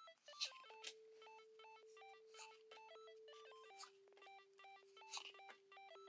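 Very quiet: a faint electronic melody of short beeping notes over a held low note that steps down about midway, with a few soft crinkles and clicks from handling a booster pack and cards.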